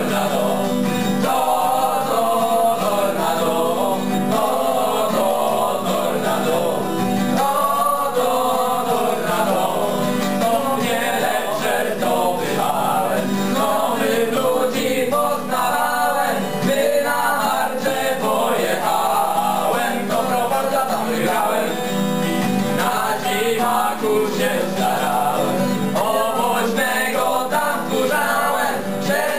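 Group of young male voices singing a ballad together, accompanied by an acoustic guitar.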